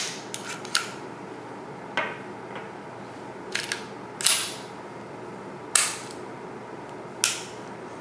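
SIG Sauer P238 .380 pistol being unloaded by hand, its slide racked back and let go again and again: a series of sharp metallic clacks, about one every second or so.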